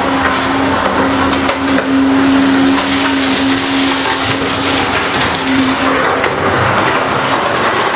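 Large hydraulic excavator's diesel engine and hydraulics working under load while loading an articulated dump truck. There is a steady drone that fades about six seconds in, with scattered knocks.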